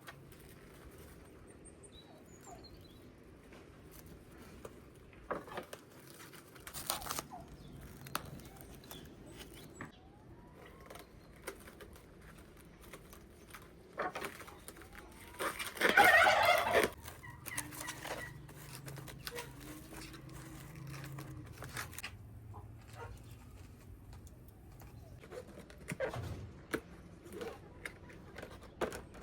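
A loud, wavering call from a farmyard bird, about a second and a half long, about sixteen seconds in, among scattered knocks and clicks.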